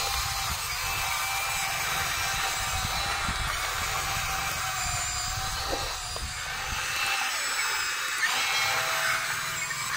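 Small electric motors of a Huina radio-controlled excavator whining steadily as it swings and works the boom and bucket.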